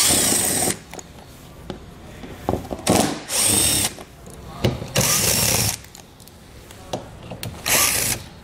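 Cordless drill-driver with a T30 Torx bit backing out the screws of a plastic under-body splash shield. It runs in four short bursts, each under a second, with light clicks between them.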